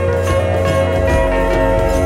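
Background music with a steady beat, guitar-like plucked notes and a bright jingling percussion.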